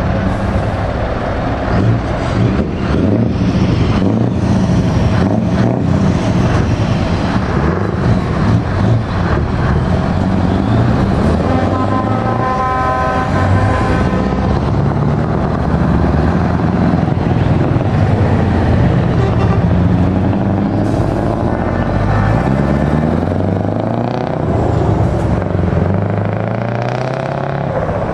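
Heavy trucks' diesel engines pulling away one after another, the first a Scania V8 tractor unit, with engine pitch rising in steps as they accelerate through the gears. About halfway through, a truck's horn sounds for a couple of seconds.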